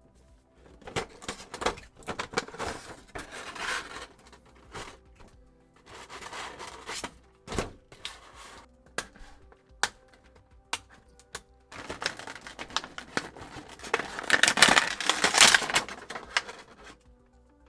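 Action-figure packaging being opened by hand: cardboard and plastic rustling and tearing with scattered sharp clicks, the longest and loudest rustling near the end, over background music.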